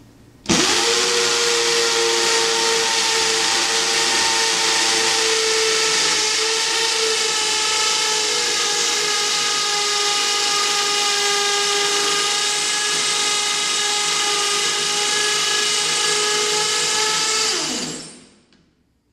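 Electric drill motor started about half a second in, spinning up quickly to a steady high whine, running at an even speed for about seventeen seconds, then winding down with falling pitch near the end.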